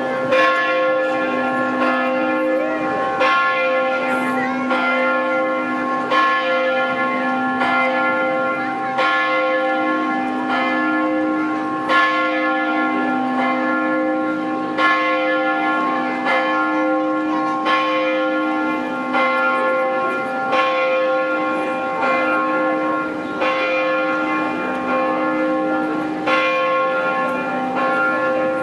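Several church bells ringing together in a continuous peal. Strokes come about every second and a half, each note ringing on into the next, with two lower bells sounding alternately.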